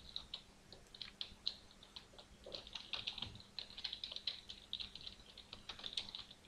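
Typing on a computer keyboard: a quick, irregular run of faint key clicks, over a faint steady hum.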